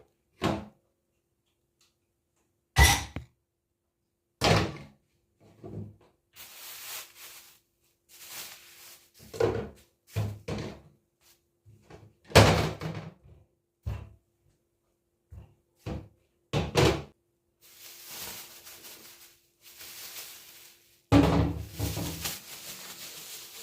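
Household clatter: a series of sharp thuds and knocks like cupboard doors shutting or objects being set down, with stretches of rustling noise in between and a faint steady hum underneath.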